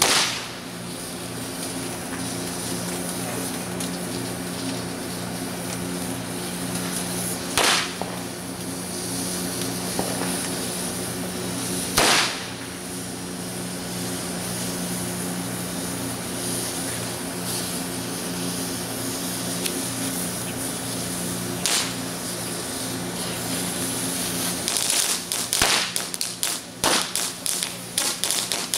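Fireworks hissing and burning steadily, with a few single sharp firecracker bangs spaced several seconds apart. About 25 seconds in, a rapid string of small firecrackers starts popping.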